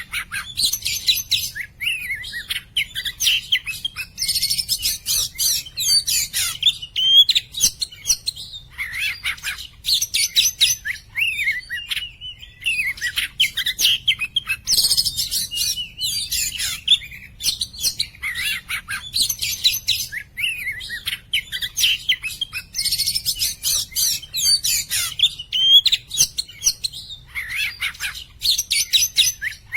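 Oriental magpie-robin (kacer poci) singing continuously: a rapid, varied run of clear whistles, trills and chirps with only brief pauses.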